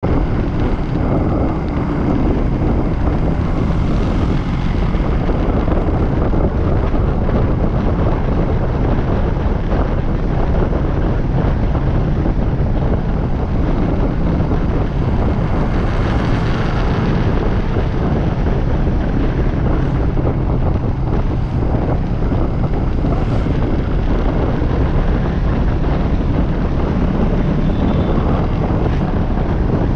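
Steady wind rush on the microphone of a camera on a moving vehicle, with a low drone of travel noise underneath.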